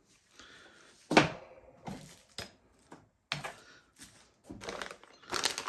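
A few sharp clacks and knocks of hard crossbow parts and accessories being handled and set down on a cardboard box, the loudest about a second in. Near the end, plastic bag packaging starts to crinkle.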